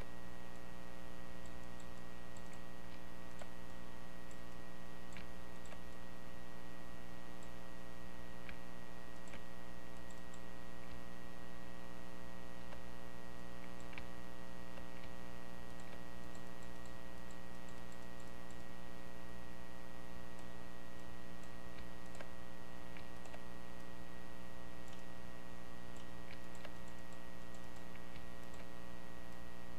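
Computer mouse clicking now and then over a steady electrical hum with many overtones.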